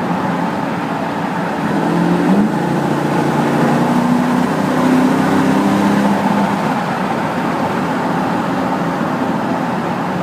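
Porsche Cayenne GTS engine rumbling in a tunnel over steady road noise. About two seconds in its note rises, holds for around four seconds, then eases back into the road noise.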